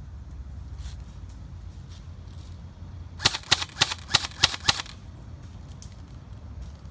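Airsoft gun firing a quick string of about eight sharp shots in a second and a half, about halfway through.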